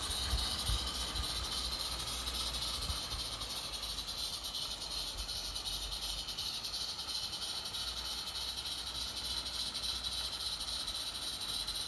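Roundhouse Davenport live-steam garden locomotive running with its train, giving a steady hiss of steam. There is a low rumble in the first few seconds, and the sound eases slightly as the train moves away.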